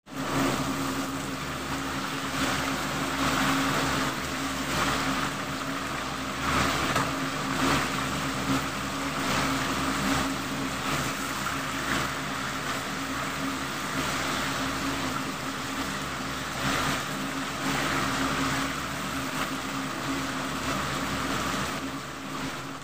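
Chicken pieces deep-frying in a wok of hot oil: a steady sizzle with crackling from the bubbling oil, and a steady low hum underneath.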